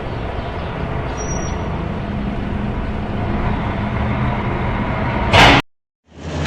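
Large vehicle engine running steadily. Near the end comes a short loud hiss, then a brief cut to silence, and another engine sound starts.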